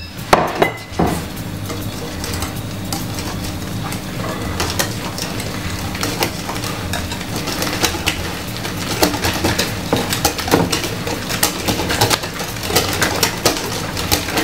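Hand whisk mixing flour into cake batter in a bowl, giving continuous clinking and scraping against the bowl, with a couple of sharper knocks just after the start.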